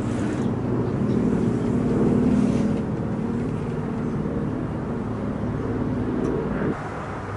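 Piston engine of a single-engine propeller warbird droning as it flies overhead, growing louder about two seconds in. The sound drops off suddenly near the end.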